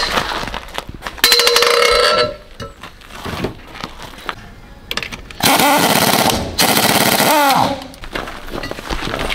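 Impact wrench hammering at a car wheel's seized lug nuts in two bursts, a short one about a second in and a longer one of about two seconds past the middle, the second ending as the motor winds down.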